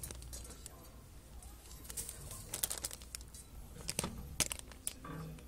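Plastic bags crinkling and rustling as a cat climbs over them, in scattered sharp crackles that come mostly about two seconds in and again about four seconds in.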